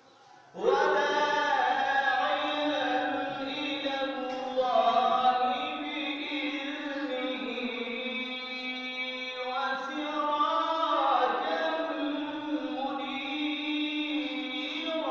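A man chanting solo and unaccompanied into a microphone, holding long, wavering melodic notes. The voice comes in about half a second in after a short pause.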